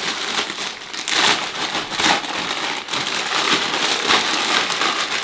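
Thin plastic wrapping around a bundle of dried rice vermicelli crinkling and rustling as it is handled and pulled open.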